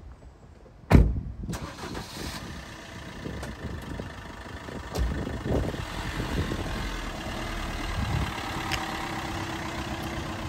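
Opel Combo van's 1.3 CDTI four-cylinder turbodiesel starting with a sudden loud burst about a second in, then idling steadily.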